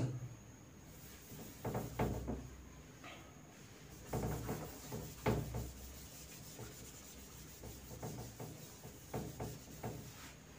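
A cloth rubbing marker off a whiteboard, wiping in a series of uneven, soft swipes.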